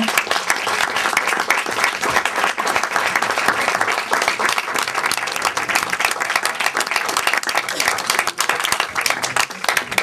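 An audience applauding: many hands clapping together in a dense, even patter.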